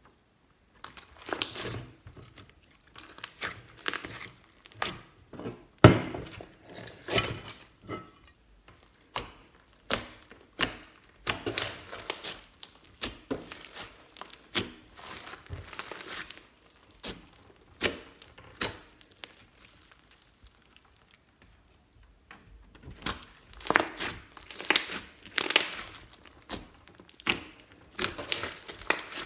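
Hands squishing, stretching and pressing a large mass of glittery slime mixed with small beads, giving a string of irregular sharp pops and crackles, with a pause of about three seconds in the later part.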